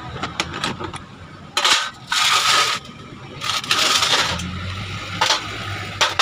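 Hand tools and metal parts being worked on a Yamaha Mio i 125 scooter's engine side cover as it is refitted over a new starter bendix: a few light clicks, then several loud, harsh noises of under a second each.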